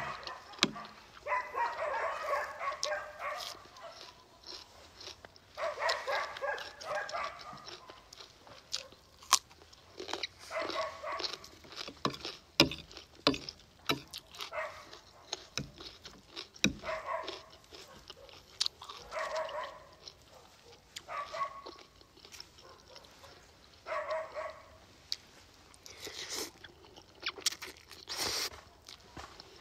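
A dog whining in short, high-pitched spells every few seconds, over chewing and sharp clicks of a fork against a glass dish.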